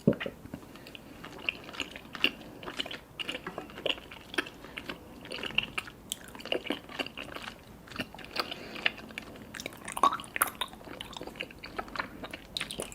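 Close-up chewing of sticky, chewy black tapioca pearls (boba): a busy run of wet, sticky mouth clicks and smacks, several a second.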